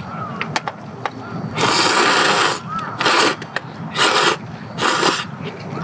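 A man slurping thick ramen noodles: one long slurp about a second and a half in, then three shorter slurps about a second apart.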